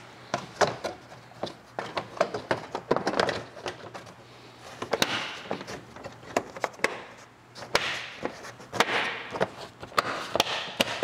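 Irregular sharp plastic clicks and taps with brief rustling between them: plastic push clips being pressed into the closeout panel under a car's hood.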